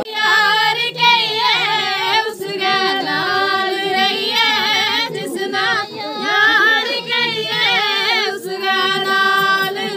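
A group of women singing a folk wedding song together in high voices, unaccompanied, in sung phrases with short breaks about two, six and eight seconds in.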